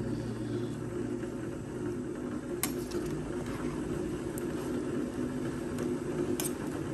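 A steady low whirring hum with three light clinks of a metal ladle against the stainless steel pot of soup.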